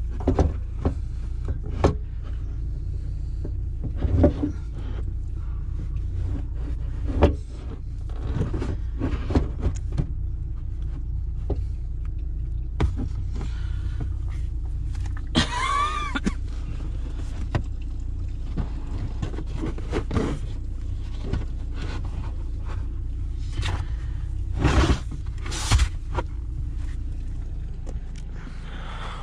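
Renault Mégane IV with a steady low rumble from the car, broken by many short knocks and clicks. About halfway through comes a brief wavering high squeal.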